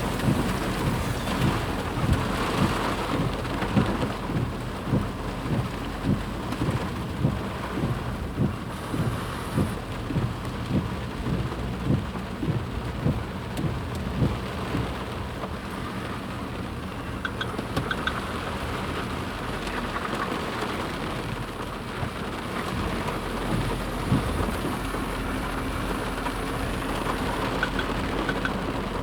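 Steady rush of water from a flash flood. A run of low thumps, a little more than one a second, sounds through the first half.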